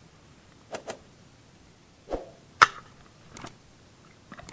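A gun being handled and aimed: a few light clicks, a dull knock about two seconds in and a single sharp crack just after it, then two more clicks.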